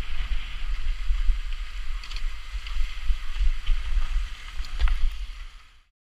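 Mountain bike ride noise on a rough rocky track: a heavy low rumble of wind and jolts buffeting the helmet-mounted microphone, a steady hiss, and a few sharp knocks and rattles as the bike goes over stones. The sound fades out and goes silent near the end.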